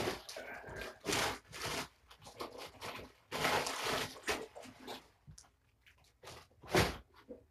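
Irregular bursts of rustling, crinkling handling noise, the loudest at the very start and again near the end.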